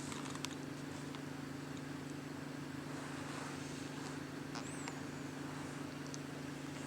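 Steady low hum of room tone, with a few faint clicks and one brief high squeak about four and a half seconds in.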